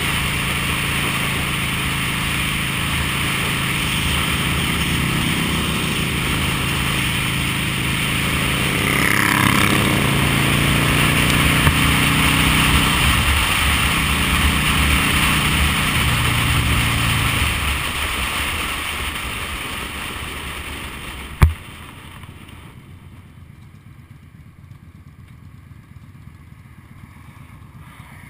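V-twin cruiser motorcycle running at road speed with wind rushing past, then slowing down: the engine note falls and the wind fades over several seconds. A single sharp knock comes about 21 seconds in, after which it is much quieter.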